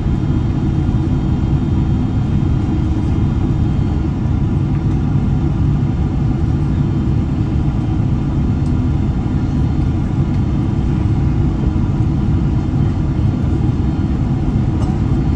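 Steady low rumble inside the cabin of a Boeing 767-200, from its engines and the airflow, heard from a window seat beside the wing during the descent toward landing.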